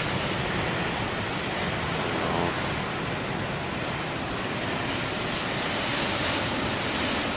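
Ocean surf: big waves crashing and washing in, a steady rush of noise that swells a little near the end.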